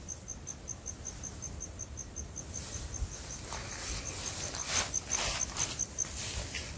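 A cricket chirping in a steady rhythm, about four to five short high chirps a second. Bursts of rustling, hissing noise swell up through the second half.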